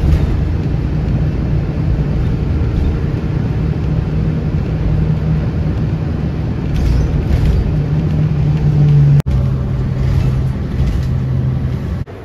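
Engine and road noise inside a moving vehicle's cabin: a steady low drone with rumble. It breaks off briefly about nine seconds in and resumes slightly lower in pitch.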